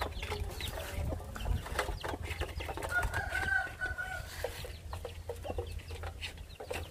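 Hen and chicks clucking and cheeping while pecking feed from a metal basin, with many quick sharp pecks on the metal. About three seconds in comes one drawn-out call lasting under a second, over a steady low hum.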